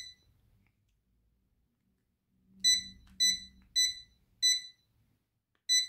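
Short high-pitched electronic beeps from a Fuloon LED wall clock's buzzer, one for each button pressed on its remote keypad while the year is keyed in. There is one beep at the start, then a run of five from about two and a half seconds in, roughly half a second to a second apart.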